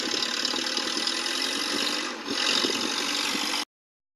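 Rebuilt four-cylinder engine of a 1946 Conveyancer forklift running at its first start-up after the rebuild, with a brief dip about two seconds in. The sound cuts off suddenly about three and a half seconds in.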